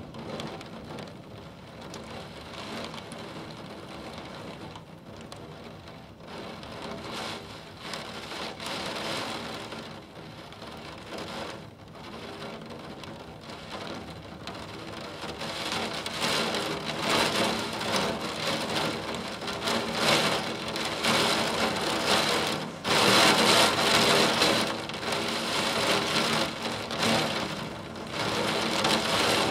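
Heavy monsoon downpour with gusting wind, a steady rushing hiss of rain that swells louder in gusts from about halfway through and is loudest a little past two-thirds of the way.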